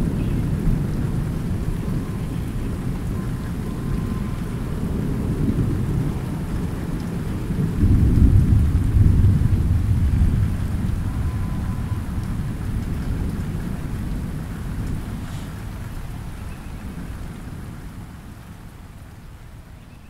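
Thunder rumbling low under steady light rain falling on a pond. The rumble swells about eight seconds in, then everything slowly fades away over the last several seconds.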